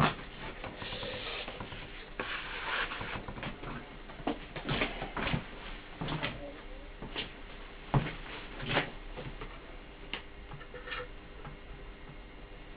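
Scattered light knocks and clicks with a few short scraping noises, handling sounds around a loudspeaker on a workbench; the loudest click comes at the very start and another about eight seconds in.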